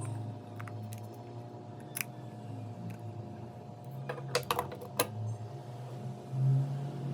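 Scattered sharp small clicks and taps of hand tools on phone parts, with a quick run of clicks about four seconds in, over a steady low hum that swells briefly near the end.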